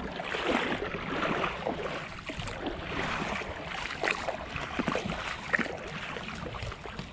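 Shallow water sloshing, with irregular splashes, as a hooked snook is pulled through the shallows onto the sand. Wind rumbles on the microphone.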